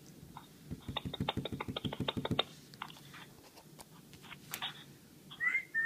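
A quick run of sharp taps, about a dozen in under two seconds, then scattered single clicks. Near the end comes a short whistle that rises and then holds. These are test sounds for an iPhone 5 whose microphone stayed open after a call and plays the room back through its speaker as an echo.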